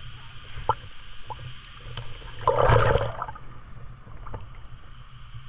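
Stream water sloshing and gurgling around a camera held at the water's surface, with scattered small drips and ticks. A louder splash comes about two and a half seconds in.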